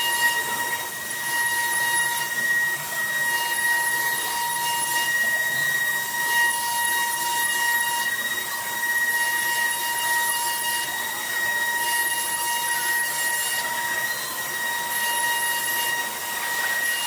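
CNC router spindle running with a steady high-pitched whine while cutting wood, with a high hiss of the cutting that comes and goes every second or two.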